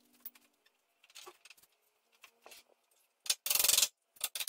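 Claw hammer driving a nail into a wooden sawhorse leg: a few faint taps, then louder sharp hits near the end.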